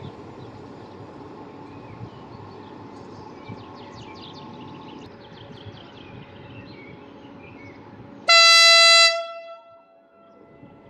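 Electric locomotive's horn giving one short, loud blast about eight seconds in: a single steady tone that dies away afterwards.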